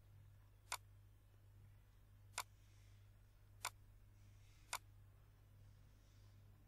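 Four sharp computer mouse clicks, spaced one to two seconds apart, over a faint steady low hum.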